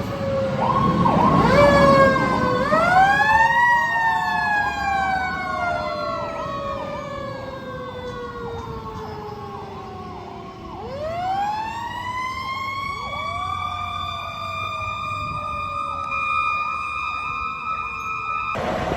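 Fire apparatus sirens: a wailing siren climbs steeply to a high pitch about two to four seconds in and again around eleven seconds, each time slowly falling away. Beneath it a fast, repeating yelp runs on steadily, and everything cuts off abruptly near the end.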